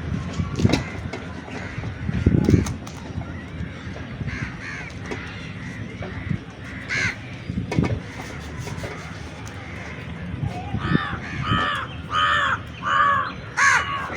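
A crow cawing: a run of about five short, harsh calls in the last few seconds, with one earlier call. Beneath it are low knocks and rustling from close handling.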